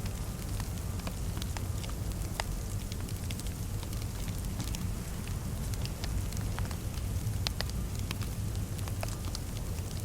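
Fireplace fire crackling, with scattered sharp pops and snaps over a steady low rumble of the flames.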